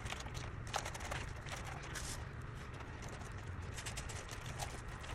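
Rustling and crackling of artificial flocked greenery sprigs as they are handled and pushed into the arrangement, in short irregular bursts over a steady low background hum.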